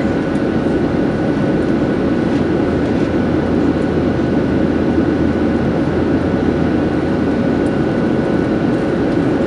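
Steady cabin noise of a Boeing 737-700 climbing after takeoff, heard from a window seat over the wing: its CFM56-7B turbofans and the rush of air past the fuselage make an even low rumble, with a faint steady high tone running through it.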